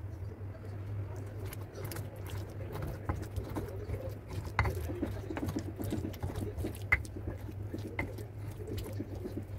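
Stone pestle grinding and mashing wet cooked chilli paste in a stone mortar (cobek and ulekan): irregular wet squishing and scraping, with a few sharp clicks of stone on stone, over a steady low hum.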